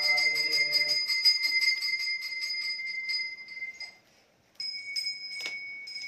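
Temple bell rung in rapid, even strokes during the aarti, its ringing tone steady underneath, with a man's voice beneath it for the first second. The ringing breaks off briefly about four seconds in, then resumes more sparsely with one sharp knock.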